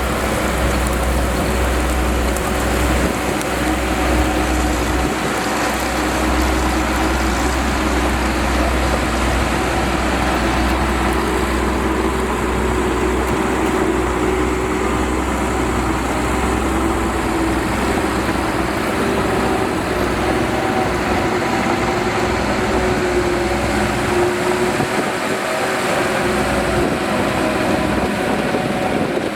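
Shantui DH17C2 crawler bulldozer's diesel engine running steadily at a constant pitch, with a deep rumble beneath that drops out for a few seconds near the end.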